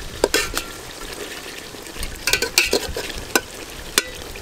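A flat metal spatula scrapes and clicks against the sides of a metal handi as spiced mutton and potatoes are stirred. Under it runs a steady sizzle from masala that has cooked down nearly dry.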